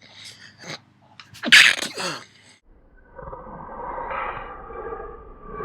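A man sneezing from allergies: quick breathy intakes, then a loud sneeze about a second and a half in with a second burst right after it. A longer, drawn-out vocal sound follows in the second half.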